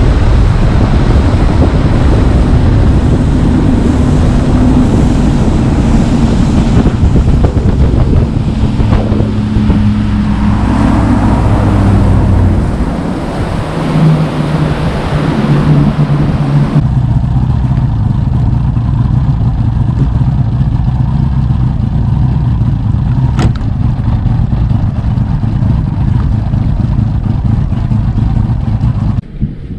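Bass boat's outboard motor running at speed across the water, with a rushing hiss over the engine note. About 13 seconds in the engine note dips and shifts pitch, and the hiss eases about 17 seconds in.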